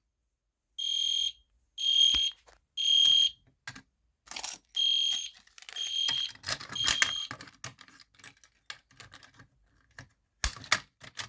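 Electronic fire alarm horn sounding in the temporal-three evacuation pattern: two rounds of three short, shrill, steady-pitched blasts with a pause between the rounds. A string of clicks and rattles from handling the alarm hardware follows.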